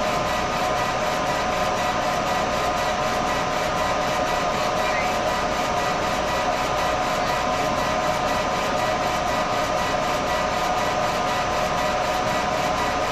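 Trotec Speedy 300 laser engraver running a raster photo engraving: a steady mechanical running sound with several fixed whining tones, unchanged throughout.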